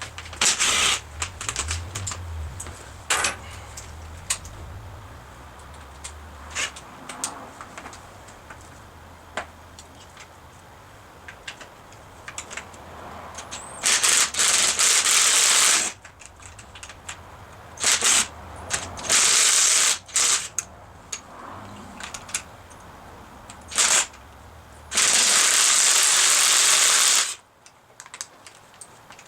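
Hand tools clicking and clattering against a motorcycle's handlebar and handguard mounts while the old handguards are taken off. Several loud hissing bursts of about two seconds each come in the second half.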